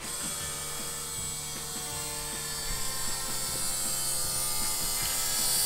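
High-flow 300 L/h electric fuel pump running with a steady hum and irregular ticking, slowly getting louder as it builds fuel pressure in the system.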